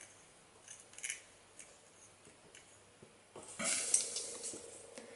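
Small metal clicks and light scrapes of a watchmaker's screwdriver working the tiny lens-cover screws of a tube action camera, with a louder scraping rustle about three and a half seconds in.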